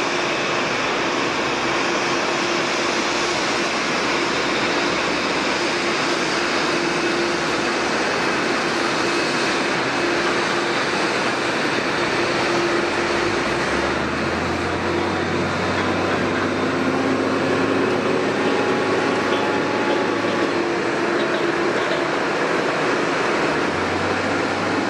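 Steady rushing noise of jet airliner engines at an airport, with a constant hum; a deeper hum joins in about halfway through.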